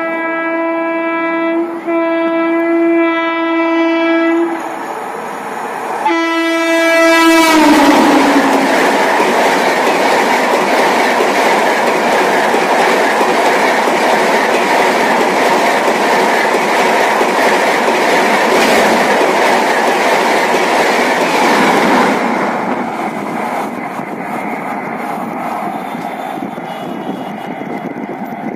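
A push-pull Rajdhani Express's electric locomotive sounds two long horn blasts, the pitch dropping as it passes. The train's coaches then rush past at speed with a dense rattle and wheel clatter over rail joints. The noise eases about 22 seconds in as the rear locomotive clears.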